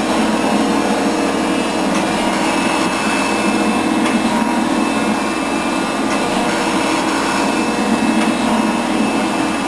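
Rockford 24-inch hydraulic shaper running steadily, its ram stroking back and forth over a cast-iron milling vise body as it planes the surface flat.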